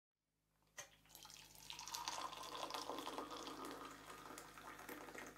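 Liquid poured from a stainless steel jug into a ceramic mug. A sharp click comes just under a second in, then a steady pour splashes into the cup for about four seconds.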